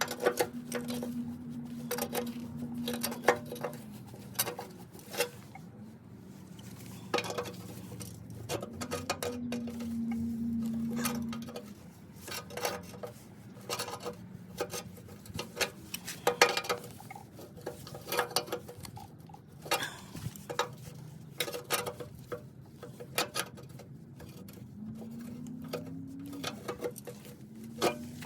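Irregular metal clinks and knocks of hand tools working on a steel mower deck, over a low steady hum that rises in pitch twice.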